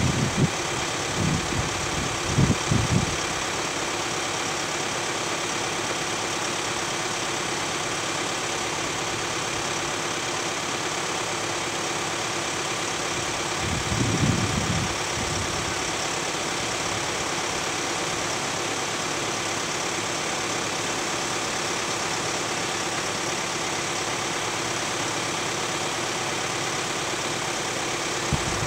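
VW Amarok's engine idling as the 4WD creeps forward at the top of a steep washout. There are a few short low rumbles near the start and again about halfway through.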